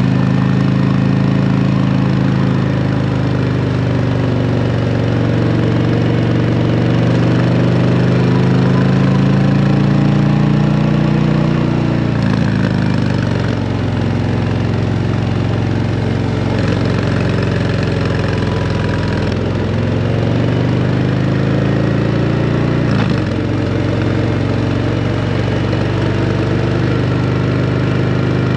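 2024 Harley-Davidson CVO Road Glide ST's Milwaukee-Eight 121 V-twin running loud through a Screaming Eagle exhaust under way. The engine note climbs slowly under acceleration, drops sharply about twelve seconds in, climbs again, dips once more near the end and then holds steady.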